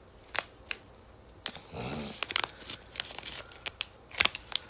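Crinkling and crackling of a Bitty Pop mystery package being handled and torn open, with scattered sharp crackles and a denser rustle about two seconds in.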